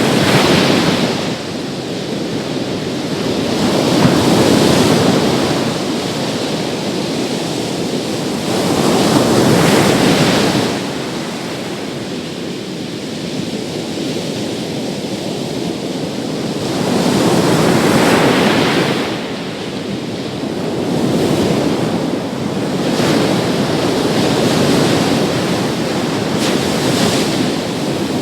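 Big sea waves breaking on a beach, the roaring surf swelling and falling back again about every four seconds, seven surges in all.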